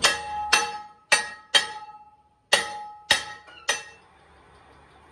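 Hammer blows on a steel truck tyre rim clamped in a lathe chuck: seven sharp strikes over about four seconds, with a short pause about halfway, each leaving the rim ringing with a clear metallic tone.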